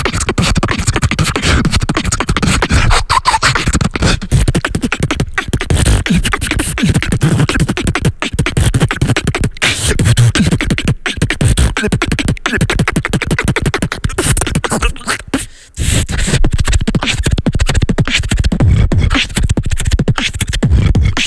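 Beatboxing into a handheld microphone, hands cupped around it: a fast, dense rhythm of bass kicks, snares and clicks, with one short break about two-thirds of the way through as the beatboxers take turns.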